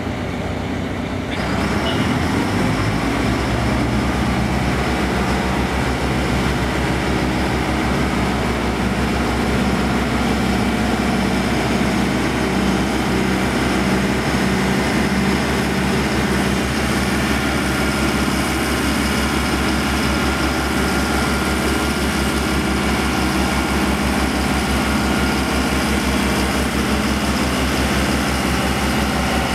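Diesel engine of the Queen Emma pontoon swing bridge running steadily with a low, even chug as it drives the floating span open. It steps up in level about two seconds in.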